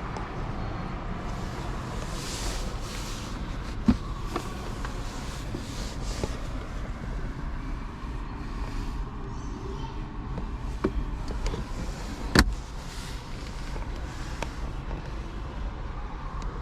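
Steady car noise, a low rumble throughout, broken by a sharp click or knock about four seconds in and a louder one a little past twelve seconds.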